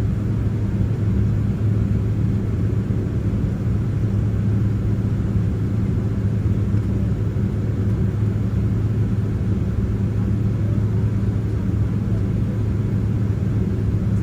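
Steady low rumble with a constant hum inside the cabin of a Boeing 767-300ER airliner taxiing slowly to its gate after landing.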